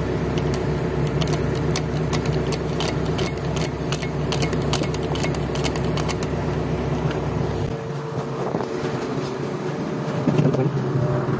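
Hand-lever grease gun clicking with each pump stroke as grease is forced into an excavator's bucket pin fitting, a few clicks a second for the first several seconds. Underneath, the excavator's diesel engine drones steadily at idle; its lowest rumble drops away about eight seconds in.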